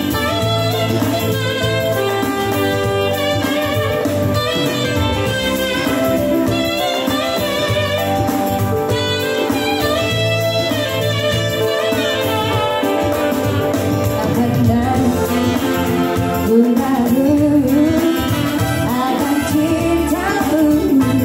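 Live band music: a saxophone playing the melody over a Yamaha arranger keyboard's backing, with a woman singing into a microphone in the latter part.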